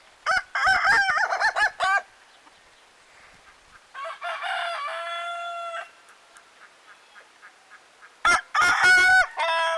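Young Ayam Ketawa (laughing chicken) roosters crowing. About a second in comes a rapid stuttering run of short notes, the 'laughing' crow. In the middle a slower crow ends on a long held note, and near the end another rapid run leads into a falling crow.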